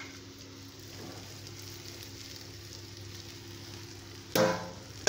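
Tomato and capsicum masala frying in a steel kadai, a soft steady sizzle with a low hum under it, as cooked rice is tipped in on top. A sudden loud clank near the end.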